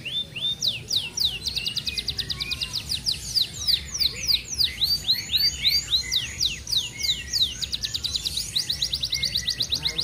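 F1 domestic canary singing a continuous rolling song: high, quick downward-sweeping notes that alternate between slower runs and very fast, tightly packed trills.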